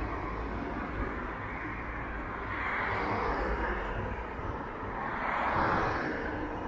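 Small waves washing onto the sand: two swells of rushing noise about three seconds apart, over a steady low rumble.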